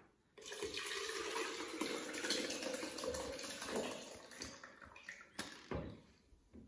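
Cullen skink (fish and potato soup) pouring from a pot into a blender goblet: a steady splashing pour that thins to a trickle after about four seconds, with a single knock about five seconds in.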